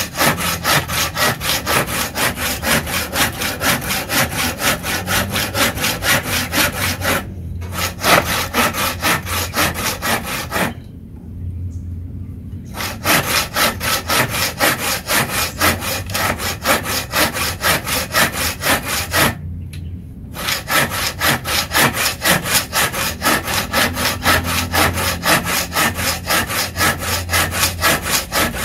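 Tekiro folding hand saw cutting through a wooden block, a fast, even rasp on every push and pull stroke. The sawing stops three times for a moment, the longest pause about eleven seconds in.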